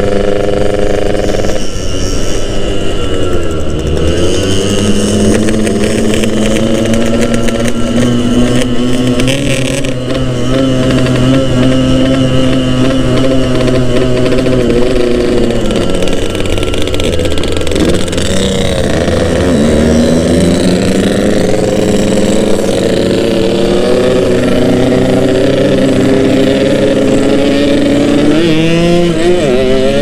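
Yamaha RX-King's two-stroke single-cylinder engine running under way, heard from on board the bike. The engine note holds steady, drops as the throttle is eased about three seconds in and again just before the twenty-second mark, then climbs back, and rises again near the end.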